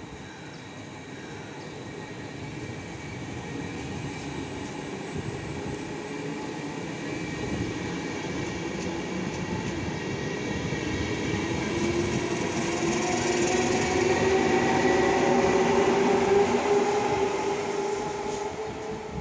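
A regional push-pull electric train of double-deck coaches running past on the near track, wheels rumbling on the rails. It grows steadily louder to a peak about three quarters of the way in, where the locomotive at the rear goes by with a whine that rises slightly in pitch, then fades as it moves away.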